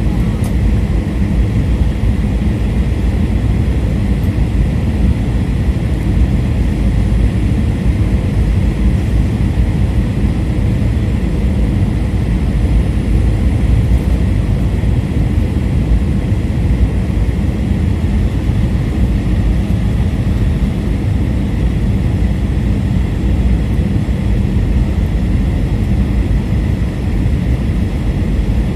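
Steady low rumble of engine and airflow noise inside an Airbus A321 cabin during the descent for landing, with a faint steady high whine.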